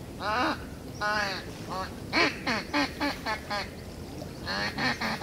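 A series of duck quacks: a longer call about a second in, then shorter quacks, closing with a quicker run of them.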